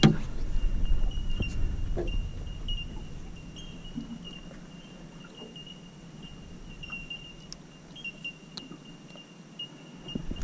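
Landing net being handled over a large flathead on a boat's carpeted deck: a sharp knock right at the start, then soft rustling and a few light clicks that fade after a few seconds. A faint steady high-pitched whine runs underneath.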